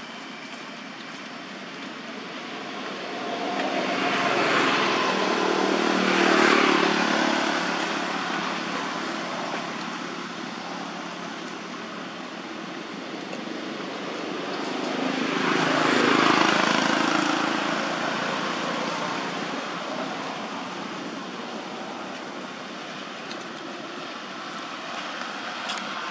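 Two road vehicles passing one after the other, each swelling up and fading away over a few seconds, about ten seconds apart, over steady outdoor background noise.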